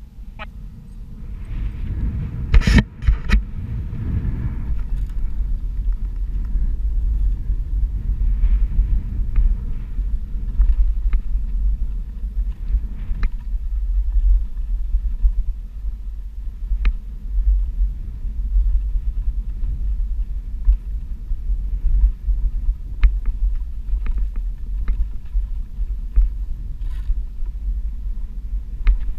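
Steady low rumble of a Onewheel XR+ electric board riding a bumpy dirt trail, with a few sharp knocks about three seconds in and scattered light clicks after that.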